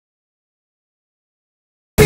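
Dead digital silence, then loud music cuts in abruptly right at the very end.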